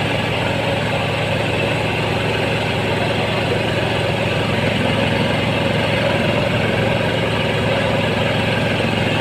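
Massey Ferguson tractor's diesel engine running steadily at constant speed, a fast even chugging.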